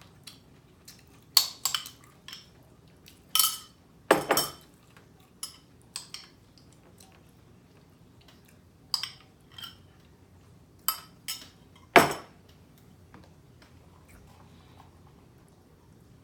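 Scattered short clinks and knocks of tableware, about a dozen at irregular intervals, the sharpest about twelve seconds in.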